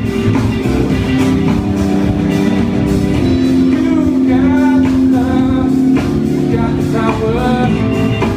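A live band playing a song: electric guitar, bass, keyboard and congas, with a voice singing over them.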